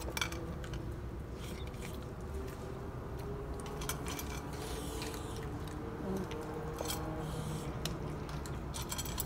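Dogs eating from their bowls: scattered crunching and clinking clicks of kibble and bowl over a low steady hum.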